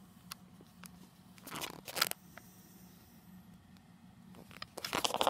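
Rustling and crackling from a hand rubbing a cat's fur against a crocheted blanket close to the phone microphone: scattered clicks, a short flurry about one and a half to two seconds in, and a louder run of crackles near the end, over a faint steady low hum.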